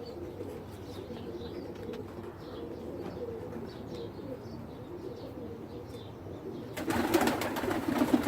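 A flock of Pakistani pigeons cooing steadily, with faint chirps. Near the end, a louder burst of wing flapping lasts about a second and a half.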